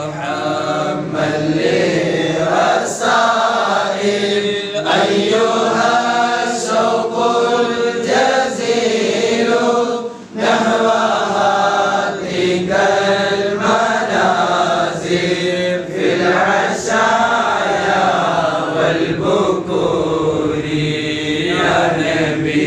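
Melodic vocal chanting in long, sustained phrases, with a short break about ten seconds in.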